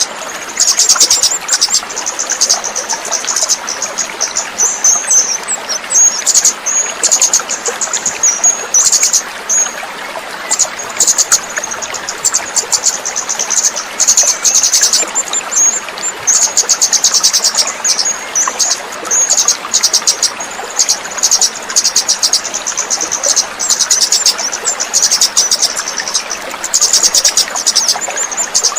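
Kemade bird singing: fast, high-pitched chattering trills in bouts of a second or two, one after another, over a steady sound of running water.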